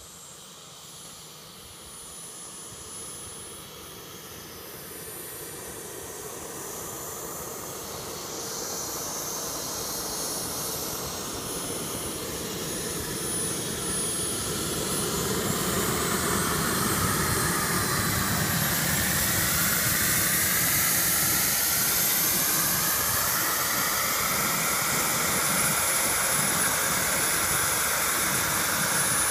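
JetCat P-160 model turbine engine of a Boomerang Taurus RC jet running at low taxi power, a high whine over a steady hiss. It grows steadily louder as the jet taxis closer, levelling off about halfway through.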